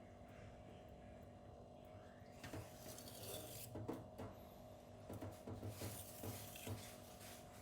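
Knife blade scraping across a 1000-grit silicon carbide whetstone in a string of quick, faint sharpening strokes, starting about two and a half seconds in.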